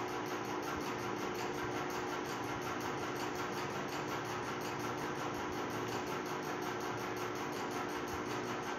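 Steady hum with a faint hiss, unchanging, with no distinct events.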